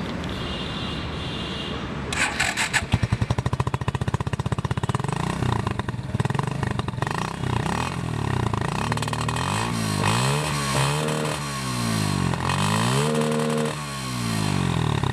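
Suzuki Gixxer SF motorcycle with a custom exhaust running, its engine note pulsing for a few seconds. In the second half it is revved repeatedly, the pitch climbing and dropping with each blip of the throttle.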